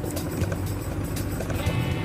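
Background music with steady sustained tones, over the sound of a motorcycle running along a rough dirt trail.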